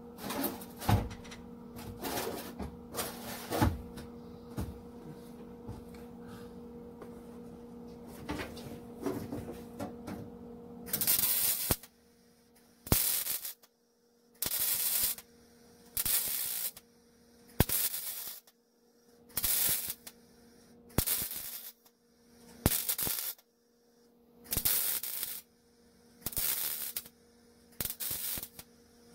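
A wire-feed (MIG) welder laying a string of spot welds on thin sheet steel: about a dozen short crackling bursts, each under a second, roughly one every one and a half seconds. Before them come a few knocks and handling noises, with a steady electrical hum throughout.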